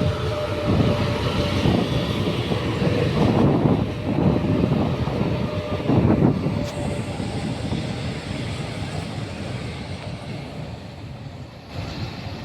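Rodalies electric commuter train running past on the track, a heavy rumble with a faint steady whine, loudest in the first half and then fading away.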